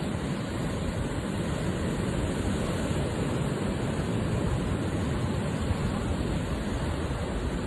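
Steady rushing noise with no clear rhythm or distinct events.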